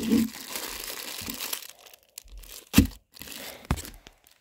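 A torn Thrive drink-mix sachet crinkling as it is handled, a dense papery rustle for the first second and a half. Two sharp knocks follow in the second half, the first the loudest sound.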